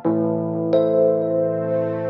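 Background music of sustained electric-piano or synth chords, with a new chord at the start and higher notes coming in about three quarters of a second in.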